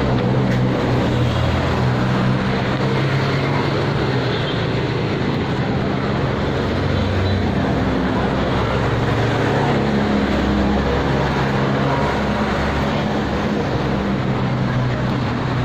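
Steady city traffic noise heard from a moving bicycle: a continuous rush with the low hum of engines running nearby.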